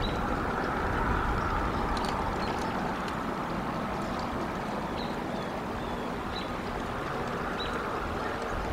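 Steady outdoor rumble and hiss, with a few short, high bird chirps, each sliding slightly down in pitch: one at the start and three more in the second half.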